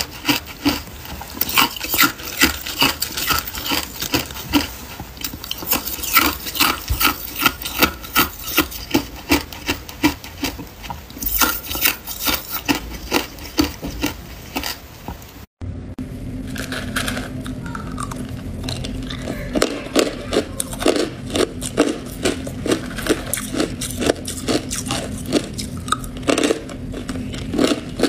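Hard ice being bitten and chewed close to the microphone: a rapid, even run of crunches. About halfway through the sound drops out for a moment, and the crunching goes on with a low steady hum beneath it.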